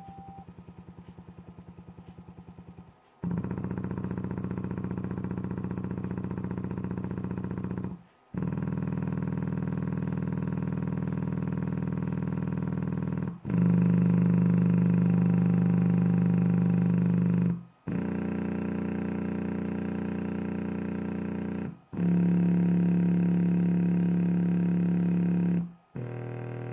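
Alpine SWE-815's bare 8-inch subwoofer driver playing test tones in free air, for an excursion test. It plays a series of steady, buzzy tones, each held about four to five seconds with a short break between them, and each at a different pitch.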